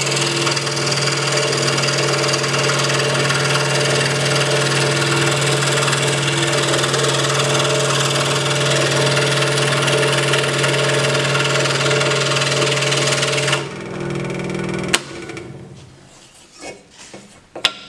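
Hegner scroll saw running at a raised speed, its fine blade cutting through MDF held down firmly on the table, with a steady motor hum under a dense cutting hiss. The cutting hiss stops about three-quarters of the way through, the motor hum goes on briefly, then a sharp click and the saw runs down.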